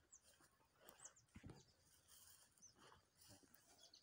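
Near silence, broken by a few faint, short, high bird chirps and one soft low knock about a second and a half in.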